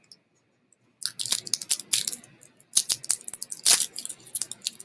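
Small plastic candy wrapper crinkling as it is opened by hand: a quick, irregular run of sharp crackles starting about a second in.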